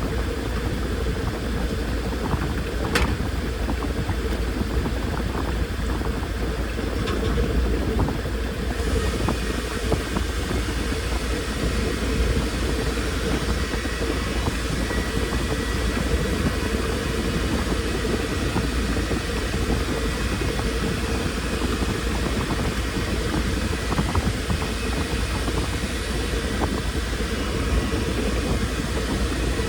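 Washing machine running: a steady motor hum with a few faint clicks.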